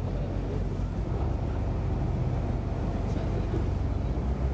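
Tour boat's engine running with a steady low drone, with some wind on the microphone.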